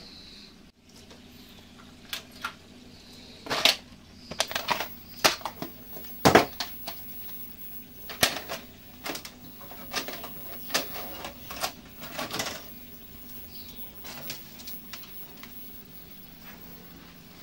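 Scattered sharp clicks and knocks, coming in irregular clusters, as of hands handling things and pressing the buttons of a small TV-video combo. A faint steady high whine starts about four seconds in and carries on.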